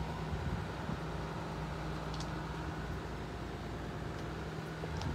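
Steady low mechanical hum, as of a machine running, with a constant low tone and a few faint ticks.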